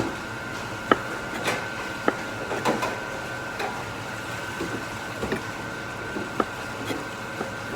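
Kitchen work sounds: scattered sharp knocks and clinks, like utensils and dishes being handled, over a steady thin high-pitched tone.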